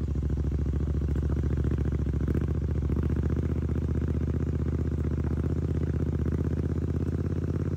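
Royal Enfield Interceptor 650's parallel-twin engine running at a steady speed on the move: a deep, even, fast firing beat with no change in pitch.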